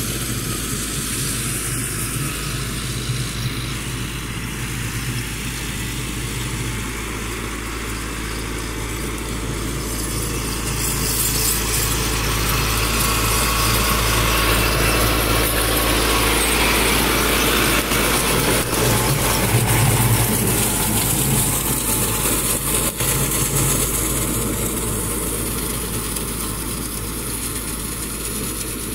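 Massey Ferguson 385 tractor's diesel engine running steadily under load as it pulls a cutter through straw stubble. It grows louder about halfway through as the tractor passes close, then eases off as it drives away.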